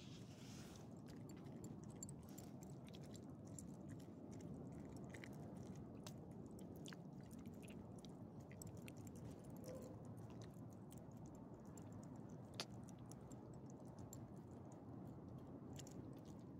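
Small dog eating from a hand: quiet, soft chewing and licking with many small clicks and smacks, and one sharper click about twelve seconds in. The dog is eating normally despite a growth on its gums.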